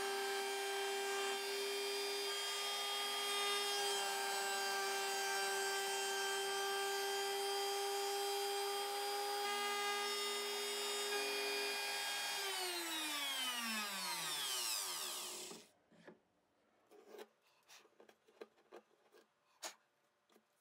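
Small trim router running at a steady high whine while re-cutting the saddle slot in an acoustic guitar's rosewood bridge. It is switched off about twelve and a half seconds in and spins down with a falling pitch, stopping about three seconds later. A few faint clicks and taps follow.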